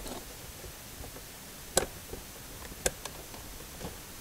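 Plastic clicks and ticks as the locking tabs on the door panel's wiring connectors are pressed in and the parts rocked back and forth. There are two sharp clicks about a second apart near the middle, among fainter ticks and a light rustle.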